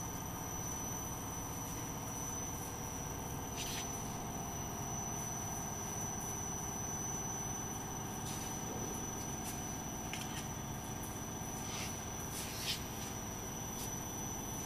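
Biscuit production line machinery running steadily, with a constant high whine and a few brief hisses now and then.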